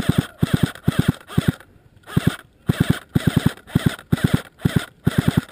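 Electric airsoft AK-pattern rifle (AKS-74U 'Krinkov' replica) firing short full-auto bursts of three to five shots, about ten shots a second. A new burst comes roughly every half second, with a brief pause about two seconds in.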